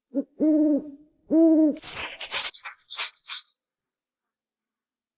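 An owl hooting: a short note, then two longer hoots. These are followed by about a second and a half of scratchy, rustling noise.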